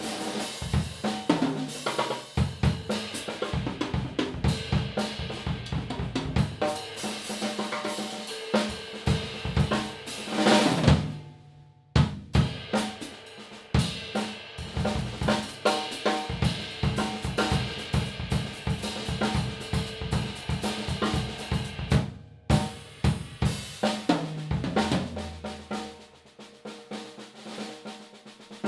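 Yamaha Oak Custom drum kit being played, heard through room microphones: kick drum, snare, hi-hat and cymbals in quick patterns. About ten seconds in the playing builds to a loud peak and stops abruptly, then starts again. There is another brief stop about two thirds of the way through.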